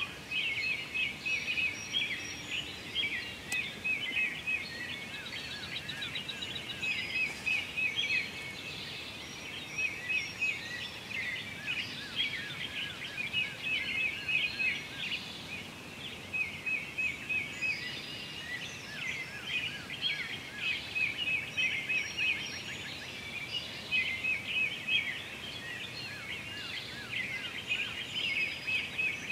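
Several songbirds singing at once: a dense chorus of rapid chirps and trills that runs on with only brief lulls.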